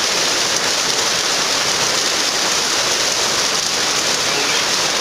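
Rain falling steadily, a continuous even hiss with no break or change.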